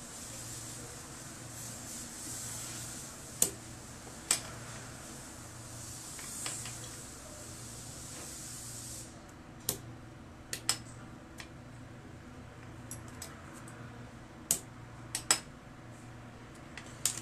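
Small sharp metal clicks and taps, scattered irregularly, as the wafers and parts of a GMC Yukon ignition lock cylinder are worked with a screwdriver on a stone counter. A steady hiss under the first half cuts off suddenly about nine seconds in.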